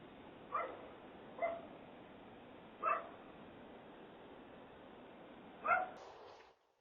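A dog barking four times, short single barks at uneven intervals, over the steady hiss of a doorbell camera's microphone. The audio cuts off near the end.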